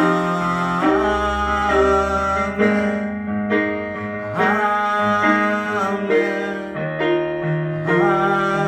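Slow worship music played on a piano-toned keyboard, sustained chords and melody notes changing about once a second.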